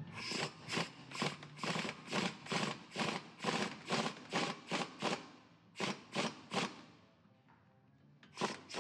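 Hand ratchet turning a bolt on a wheel hub bearing, clicking in quick, even strokes about two and a half a second. It pauses about five seconds in, makes three more strokes, then pauses again before two last strokes near the end.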